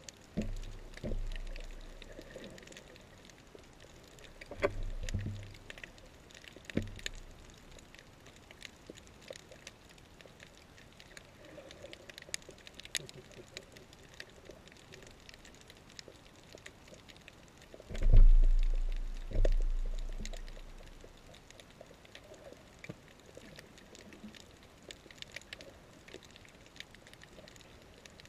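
Underwater reef sound heard through a GoPro's housing: a steady crackle of faint clicks, broken by low booming surges that swell and fade. The two loudest surges come close together a little past the middle.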